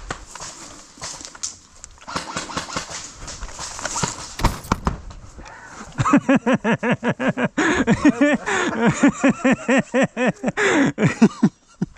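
A person's voice in a quick run of short rhythmic huffs, about five a second, starting about halfway through and stopping just before the end. Before it there is a stretch of rustling noise with scattered knocks.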